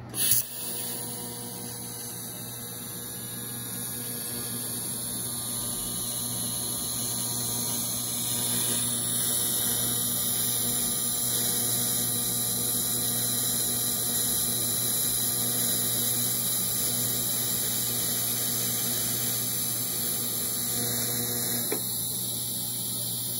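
TIG welding arc on copper from a Miller Syncrowave 250DX at about 154 amps with pure argon shielding. A sharp crack as the arc strikes right at the start, then a steady buzzing hum with a high hiss that grows a little louder over the first several seconds.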